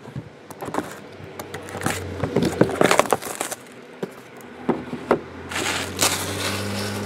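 Cardboard trading-card boxes being handled and unwrapped on a table: scattered knocks and taps, with crinkling of plastic shrink wrap that is densest about six seconds in.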